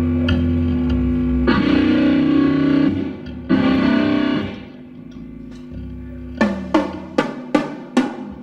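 Heavily distorted electric guitar chords, amplified, held and let ring twice. Near the end comes a run of single drum hits, about three a second, as the kit is checked.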